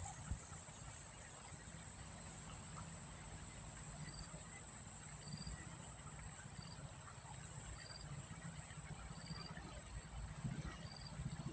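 Insects shrilling steadily at a high pitch, with a short high chirp repeating about every second and a half from about four seconds in, over a low rumble.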